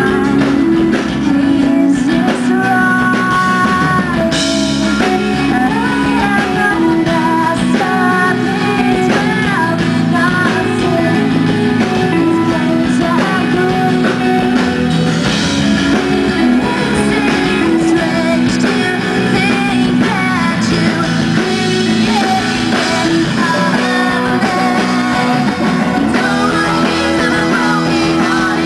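Live rock band playing: a woman sings lead over electric guitars, bass guitar and drum kit.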